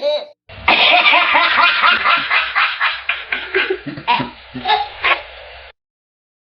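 A baby laughing in a long run of quick giggles over a low hum, starting about half a second in and cutting off to silence near the end.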